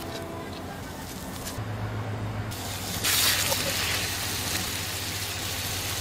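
Crab and lobster pieces sizzling in bubbling butter sauce in a skillet, played backward. The hiss grows much louder about three seconds in.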